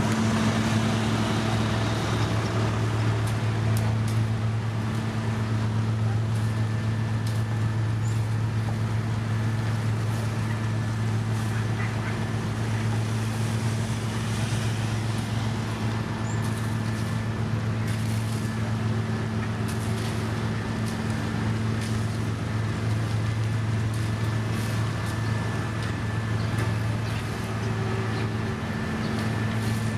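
Heavy diesel road-construction machinery running steadily at one constant pitch: a deep engine hum with faint scattered clicks over it.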